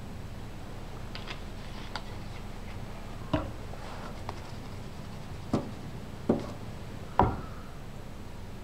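Objects being handled and set down: a few light ticks, then four short, sharp knocks spread over the second half, over a steady low room hum.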